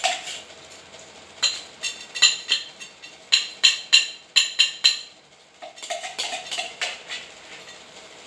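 Metal spoon clinking repeatedly against a container as wet cat food is scooped and served: a quick run of about a dozen sharp, ringing clinks in the middle, then softer scraping.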